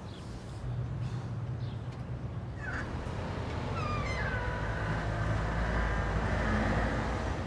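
Street traffic rumbling. About three seconds in, a high whine joins it, slides down in pitch and then holds steady.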